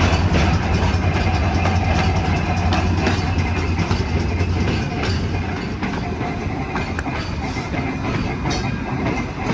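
Double-truck Birney streetcar, built in 1926 by the St. Louis Car Company, rolling along the track, heard from aboard, with wheels clicking over rail joints. A low hum drops away a little over halfway through, and the car runs on with its steady rolling noise.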